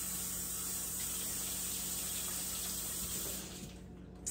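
Kitchen tap running hot water into a sink, a steady rush that is shut off about three and a half seconds in, followed by a short click near the end.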